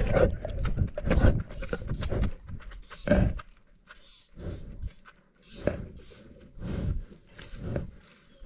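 Lioness chewing and licking a GoPro held in her mouth, right at the camera's microphone: irregular bursts of biting, mouthing and wet licking on the camera, some with heavy low thumps.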